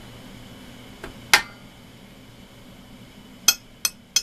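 Sharp metallic clinks of small tools knocked against hard surfaces on a workbench: a light one about a second in, a loud one just after, then three quicker ones near the end.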